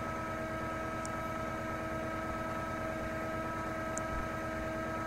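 Cummins ISX diesel engine idling steadily during a parked diesel particulate filter regeneration, a low even idle pulse with a steady whine over it.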